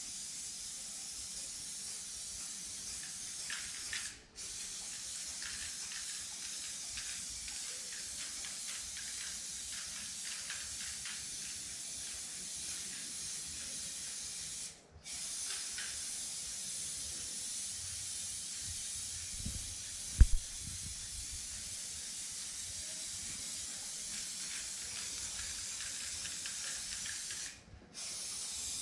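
Aerosol spray-paint can hissing steadily as paint goes onto a wall, broken off briefly three times. One sharp low thump about two-thirds of the way in.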